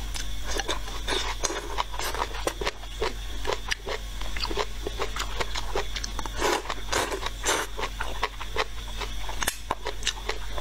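A person eating rice noodles: wet chewing and mouth clicks throughout, with a few longer slurps of noodles between about six and eight seconds in, over a steady low hum.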